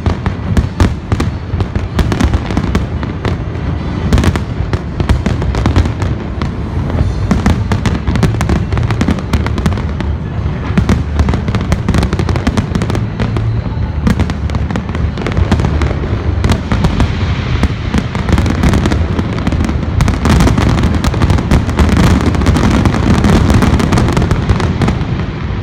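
Large fireworks display going off continuously: many sharp bangs and crackles in quick succession over a steady low rumble.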